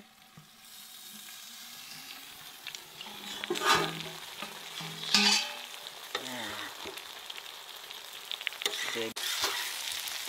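A whole fish frying in hot oil on a large flat iron pan, a steady high sizzle throughout. Twice around the middle a metal spatula scrapes under the fish and the sizzle flares loudly, and after a sharp click near the end the sizzle grows louder.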